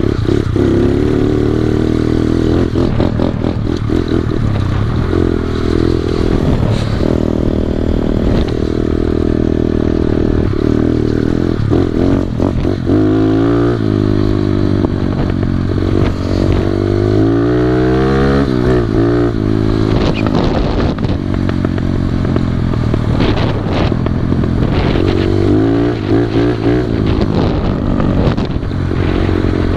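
Small motorbike engine running while being ridden, the revs rising and falling repeatedly as the throttle is worked, with some clatter from the ride.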